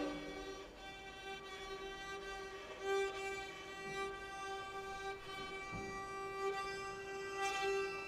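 Violin holding one long, soft, steady note in a contemporary chamber piece, just after a louder ensemble passage breaks off at the start; the note swells a little about three seconds in.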